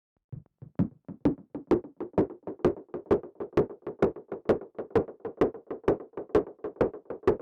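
Modular synthesizer percussion: white noise through a Wasp-style filter, gated by envelopes into short drum-like hits in a sequenced pattern, about four or five a second with every other hit accented. It starts after a brief silence.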